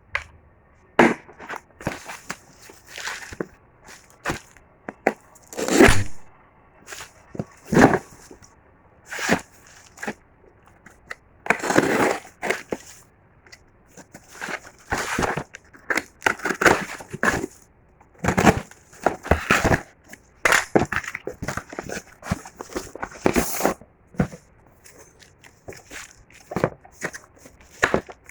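Packaging being opened and handled: irregular crinkling, rustling and tearing noises, coming in many short bursts with brief pauses between them.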